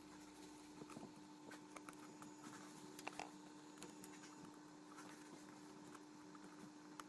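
Near silence: room tone with a faint steady hum and a few faint small clicks scattered through it.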